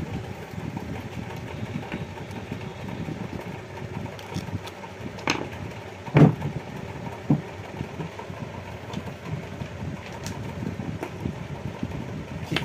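A steady low background rumble, with a few sharp clicks and knocks from a small plastic bulb holder being handled and fitted onto a wire; the loudest click comes about six seconds in.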